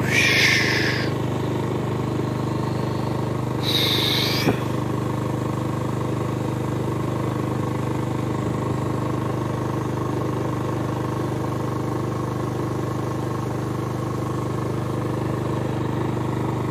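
Motorcycle engine running steadily while riding, with no change in speed. Two brief higher-pitched noises, each about a second long, cut in at the start and about four seconds in.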